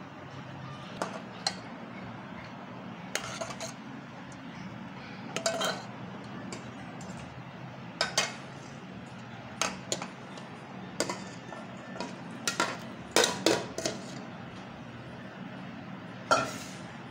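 Metal slotted spoon clinking and knocking against aluminium cooking pots, in irregular single strikes with a quick cluster about 13 seconds in, over a steady low hum.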